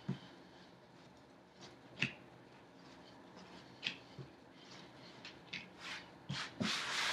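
Hands rolling a log of sugar cookie dough on a silicone pastry mat: quiet rubbing with a few faint soft taps, and a louder brushing swish near the end as a hand takes flour from the mat.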